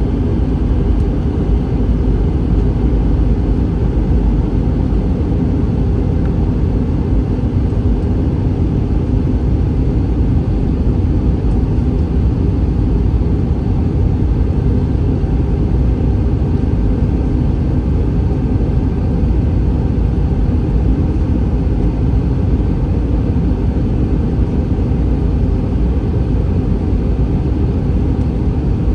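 Steady cabin noise of an Airbus A321 airliner: a loud, even rumble, heaviest in the low end, with no sudden events.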